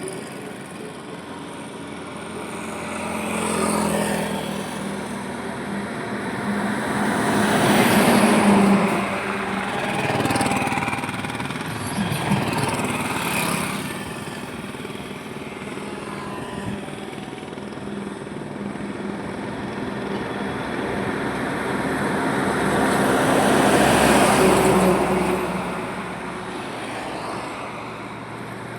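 Highway traffic: vehicles pass one after another, the road noise swelling and fading with each pass. The loudest passes come about eight seconds in and again near the twenty-four second mark.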